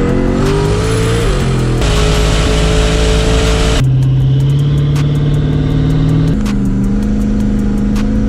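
Car engine running hard under acceleration, its note stepping to a new pitch about two, four and six and a half seconds in, with music with a steady beat laid under it.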